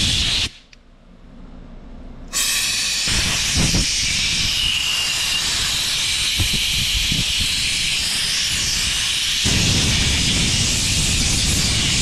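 Compressed-air blow gun blasting air over a disassembled carburetor to blow off carb cleaner and water: a loud rushing hiss that stops about half a second in, then starts again about two seconds in and carries on.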